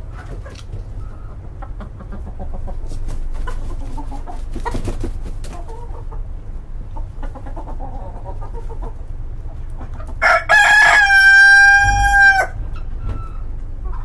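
Chickens clucking, then a rooster crowing once about ten seconds in: a few short notes leading into one long held note that drops at its end. The crow is the loudest sound.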